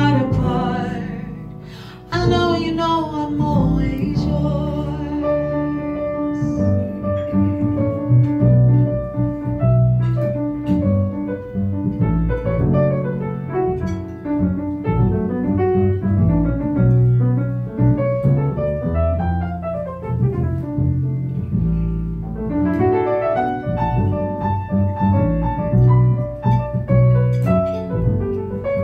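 Instrumental break in a live ballad: piano playing the melody over a bass line. A held chord dies away in the first two seconds before the playing picks up again.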